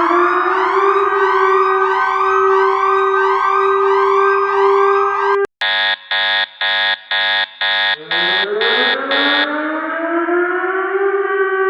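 Emergency alert sirens in sequence. A siren winds up and holds a steady tone under a fast repeating sweep, then cuts off about five seconds in. A run of about ten short, high electronic alert beeps follows, and a second siren starts winding up slowly beneath the last beeps.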